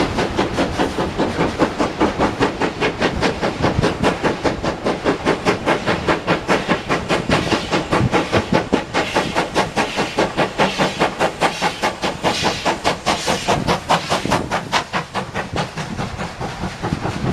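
Steam locomotive working hard up a steep 1 in 49 gradient, its exhaust giving rapid, even beats, which ease off and fade near the end as the train draws away.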